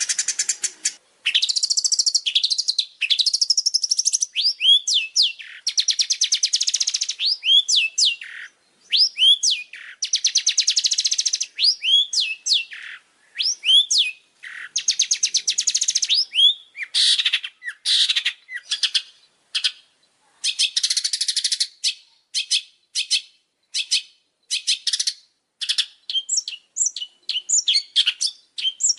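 A songbird singing a fast, varied song: dense buzzy trills alternating with quick rising whistled notes, in phrases separated by brief pauses, played as a bird-song training track.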